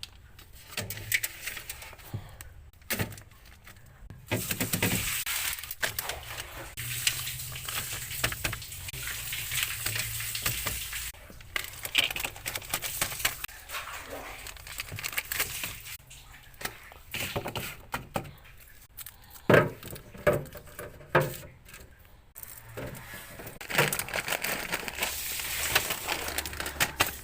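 Plastic grocery bags rustling and crinkling, with scattered knocks and clatters as groceries are packed into a refrigerator.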